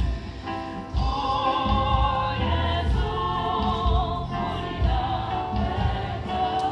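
Choir singing, with long, wavering held notes that come in about a second in, over a low, pulsing accompaniment.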